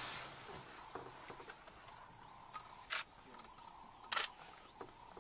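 Crickets chirping in a steady high pulse, about three chirps a second, with fainter short higher chirps over it. Two sharp clicks, a little over a second apart, about three and four seconds in, are the loudest sounds.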